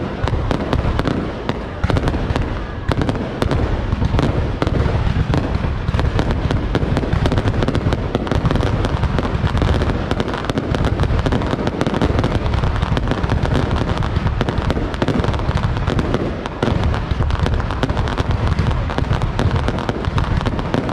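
Fireworks going off nonstop: a dense run of booms and crackles.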